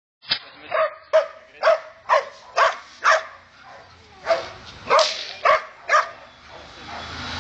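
Large shepherd-type dog barking at a helper during protection training. It gives a rapid series of about a dozen sharp barks, roughly two a second, with a brief pause a little past the middle.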